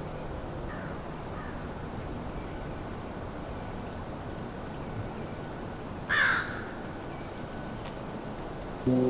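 A single loud bird call, short and falling slightly in pitch, about six seconds in, over a steady outdoor background hiss, with a couple of faint chirps near the start.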